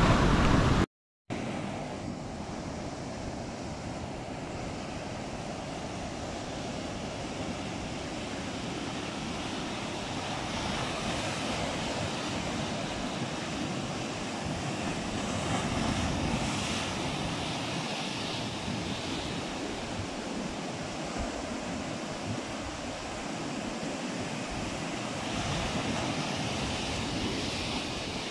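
Ocean surf washing onto the shore, a steady rushing wash that rises and eases gently. The sound is louder at first, cuts out completely for a moment about a second in, then carries on quieter.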